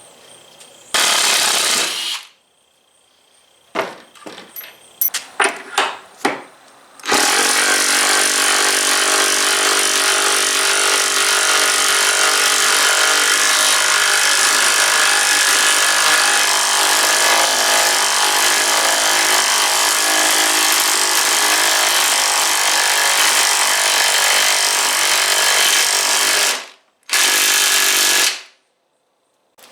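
Hart 20-volt impact driver hammering a large lag bolt into wood, running continuously for about twenty seconds. A short trigger pull comes about a second in and another near the end, with a few clicks of handling before the long run.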